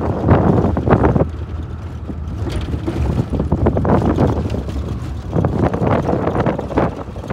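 Classic Land Rover driving over a rough desert track: a steady low engine and road rumble, with wind buffeting the microphone in uneven gusts.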